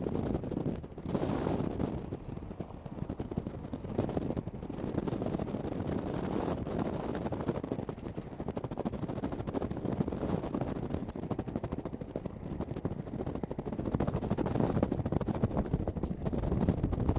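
Rumbling road and wind noise from a moving vehicle, with wind buffeting the microphone in an uneven, choppy rush. A brief hiss sweeps higher about a second in.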